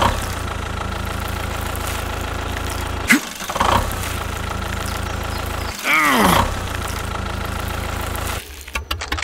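Tractor engine running steadily with a low, even drone, the sound laid over a toy tractor driving through mud. Twice, about three and six seconds in, a short sound sweeps down in pitch over it, and the engine sound stops shortly before the end.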